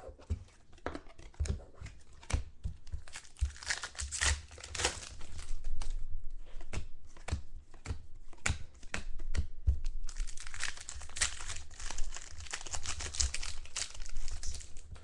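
Foil trading-card pack wrappers being torn open and crinkled, with the clicks of cards being handled: a run of sharp crackles and snaps that grows denser about ten seconds in.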